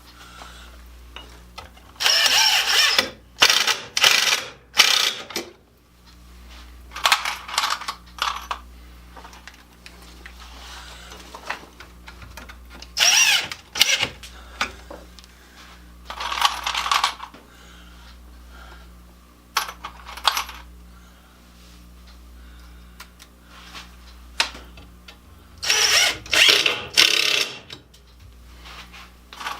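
Power driver running deck screws into wood in short bursts, several screws one after another with pauses between.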